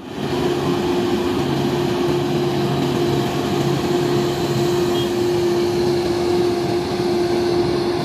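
Grove GMK5300L all-terrain mobile crane driving slowly, its diesel engine giving a steady drone with one held hum.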